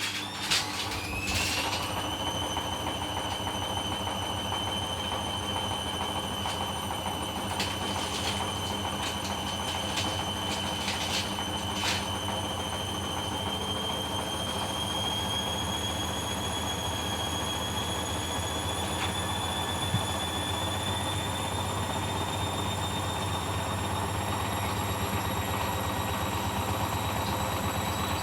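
Hoover Dynamic washing machine spinning: the motor whine climbs quickly in the first couple of seconds, then rises slowly and steadily in pitch as the drum gathers speed, with a few brief knocks around the middle. The spin is running with an unbalanced, suds-locked load.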